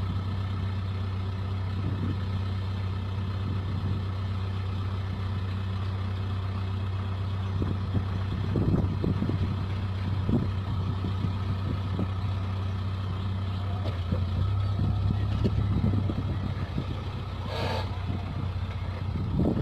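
Case backhoe-loader's diesel engine running steadily under work, with scattered knocks and scrapes of the bucket on coral rock and a brief squeal near the end.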